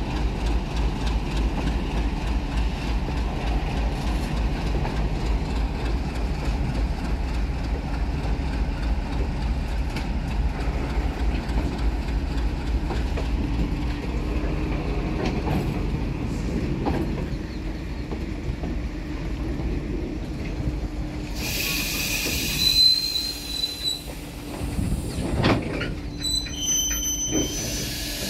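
Freight train of bogie flat wagons rolling past, wheels rumbling and clattering steadily over the rails. Past the three-quarter mark, high thin metallic squeals come in, first and loudest about 23 seconds in, then again a few seconds later.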